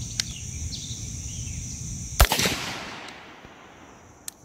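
A single rifle shot from an AR-style rifle chambered in .300 HAM'R, about two seconds in, its report echoing away over about a second.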